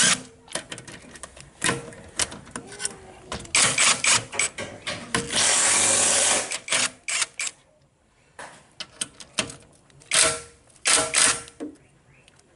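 Cordless impact tool hammering in several short bursts, with one longer run about five to six and a half seconds in, as it breaks loose the bolts on a hybrid inverter-converter's cover without running them out.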